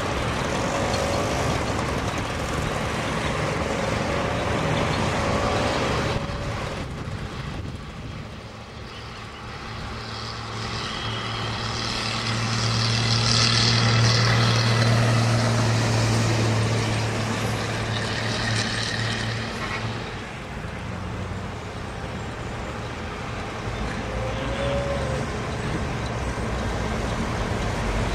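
Duewag tram running on its track, with road traffic alongside; a steady low hum builds to its loudest about halfway through, then fades.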